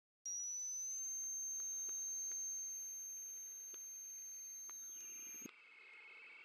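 A steady high-pitched tone that starts suddenly, rises slightly at first and cuts off about five seconds later, leaving a fainter, wavering lower tone.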